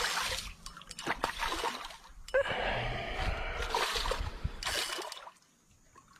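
A hooked snook splashing and churning at the water's surface as it is fought on a rod, in uneven bursts that die away about five seconds in.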